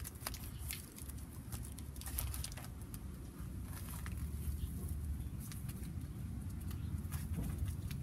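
Paper backing of a pollen patty crackling and rustling as gloved hands peel and handle it: many short irregular clicks over a steady low rumble.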